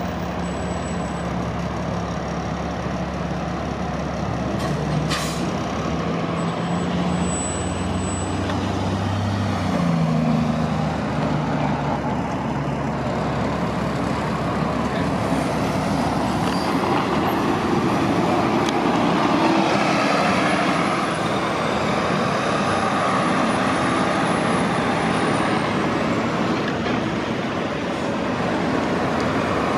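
City transit bus engines running at a bus terminal, one engine climbing in pitch as a bus pulls away about ten seconds in, followed by a steady roadway-vehicle noise with a faint high whine in the second half.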